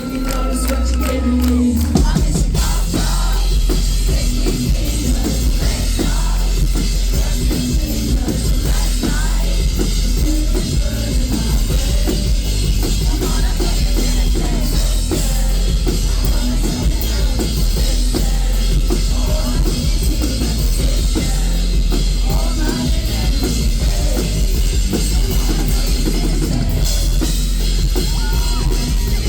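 Pop-rock band playing live, loud and bass-heavy with a full drum kit and some vocals. A held note gives way to the full band about two seconds in.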